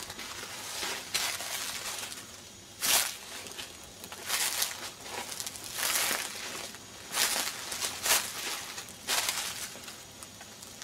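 Footsteps through dry fallen leaves, a step about every one to one and a half seconds.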